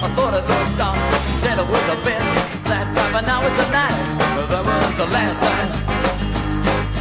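Upbeat rock and roll band recording: a melodic lead line over a steady drum beat and bass.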